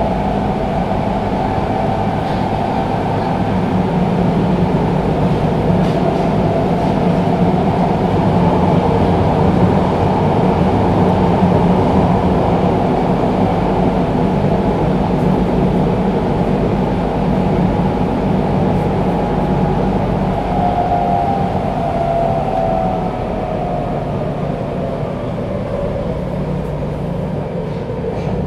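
Tokyo Metro 02 series subway car with VVVF inverter control, running, heard from inside the car: a steady rumble of wheels and traction motors. In the last several seconds a whine from the motor drive falls in pitch as the train slows.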